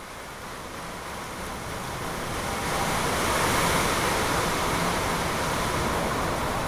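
Typhoon wind with driving rain, a steady rushing noise that builds over the first three seconds and then holds strong.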